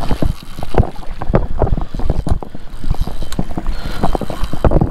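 Wind buffeting the camera microphone, over a quick, irregular run of knocks and clicks.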